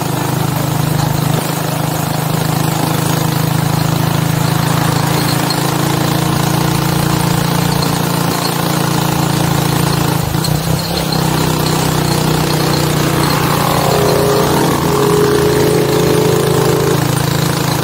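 Motorcycle tricycle's engine running steadily as it rides along, with a rattly, buzzing note under heavy wind noise on the microphone. A higher steady whine joins in about three-quarters of the way through.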